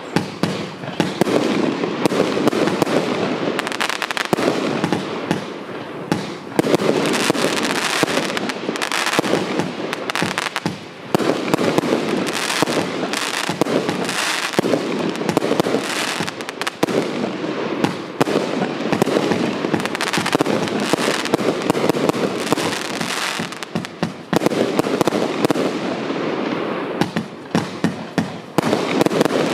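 Lesli Karma Booster, a 122-shot compound firework cake, firing a dense, rapid, continuous barrage of shots and bursts, easing briefly about a third of the way in and again near the end.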